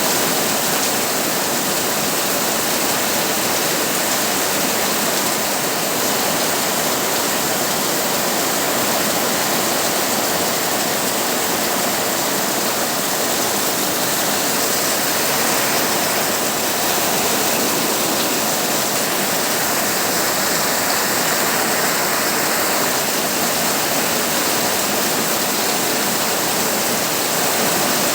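Heavy rain pouring steadily on a tin roof, an even, unbroken hiss.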